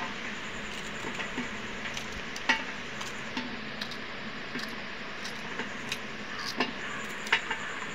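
Knife slicing okra pods held in the hand over a steel plate: scattered small clicks and taps as the blade cuts through and slices drop onto the plate, over a steady hiss.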